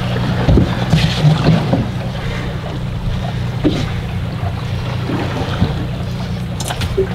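Fishing boat's engine running with a steady low hum, with scattered knocks.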